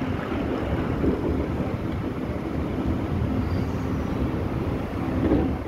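Steady rumble of a moving train heard from on board, wheels running on the rails.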